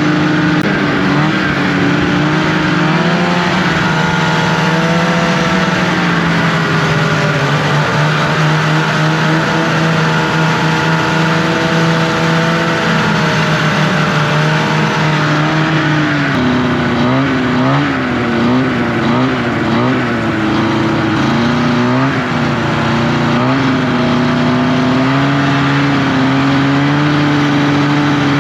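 Snowmobile engine running under way, its pitch holding steady for stretches and rising and falling with the throttle in the middle part.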